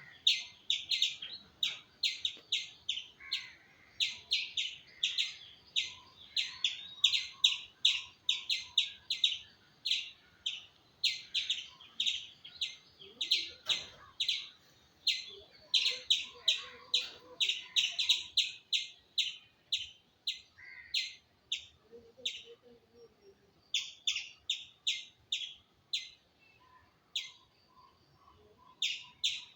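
Indian palm squirrel giving its high, bird-like chirping call, a rapid run of sharp chips at about four a second, pausing briefly twice.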